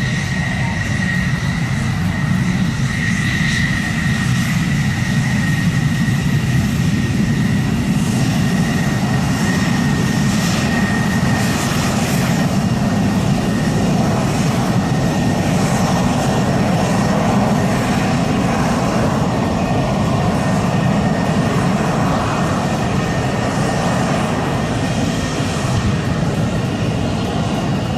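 Military jet aircraft engine noise, a steady loud rush. A thin high whine runs over it and fades out about twelve seconds in.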